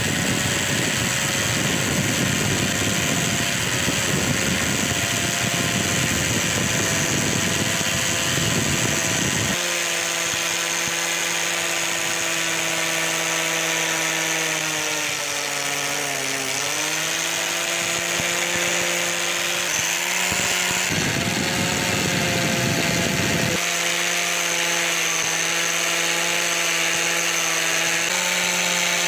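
Electric polishing or grinding tool running on the metal of old pliers. The motor whines steadily, with harsh grinding through the first several seconds and again for a couple of seconds past the middle. Its pitch sags briefly just past halfway, as if pressed under load.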